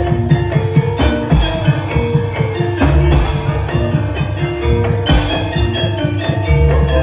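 Javanese gamelan music: metal percussion ringing sustained pitched notes over quick drum strokes, with heavier deep strikes about every two seconds.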